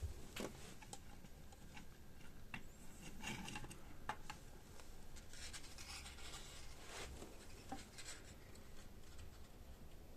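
Small clicks and scratchy rubbing from hands and hand tools working on a circuit board kit while its components are fitted and soldered, with bursts of scraping about three seconds in and again past the middle.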